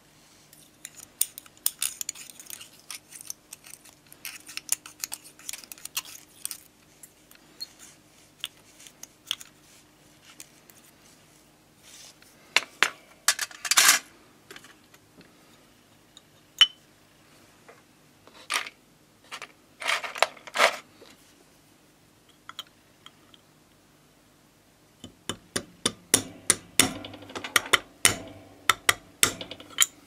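Irregular small metal clicks, taps and scrapes of hand tools and the parts of a 1930s Orlik 153 petrol lighter against a steel tray and a bench vise, during the lighter's disassembly. The clicks come in bursts, loudest about halfway through, with a dense run of them near the end.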